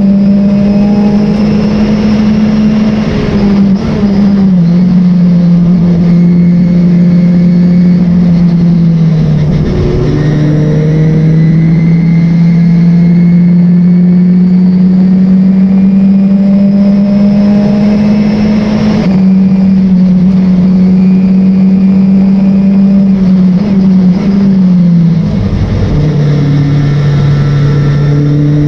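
Race car engine heard from on board, running hard at high revs throughout. Its pitch creeps upward, then drops in quick steps several times, as the car comes off the throttle and changes down.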